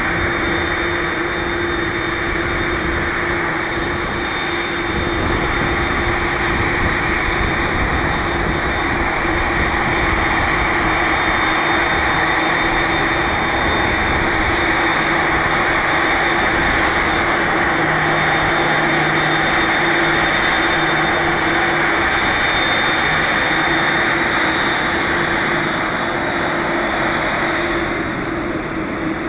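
Boeing 787-9 airliner's jet engines running steadily at taxi power: a continuous loud rush with steady tones through it, easing slightly near the end.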